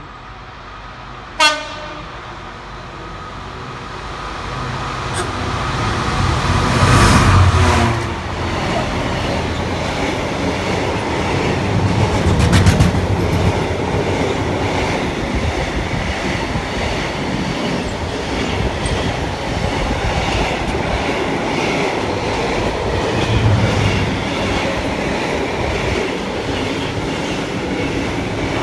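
Freight train passing at speed: a short horn blast sounds about a second and a half in as it approaches, the locomotive grows loud and goes past about seven seconds in with a falling pitch, then a long line of box wagons rumbles by with the clickety-clack of wheels over the rail joints.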